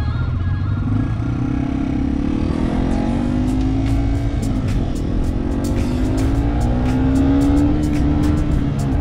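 Yamaha TW200's single-cylinder four-stroke engine pulling hard. Its pitch rises steadily, drops sharply about halfway through as it shifts up a gear, then climbs again and drops once more near the end. Scattered sharp ticks sound over the steady low rumble.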